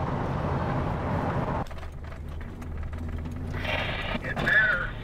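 Two-way radio receiver hiss in a moving vehicle's cabin that cuts off suddenly about a second and a half in, as the squelch closes. Then the low steady drone of the engine and road, and near the end another short burst of radio audio as a transmission comes in.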